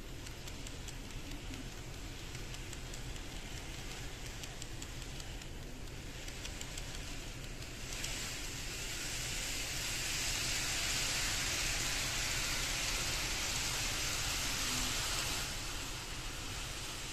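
KATO N-gauge 500 series Shinkansen model train running on the track, a fine rapid clicking of its wheels that dies away after about five seconds as it leaves. From about eight seconds in, a louder steady hiss that drops back near the end.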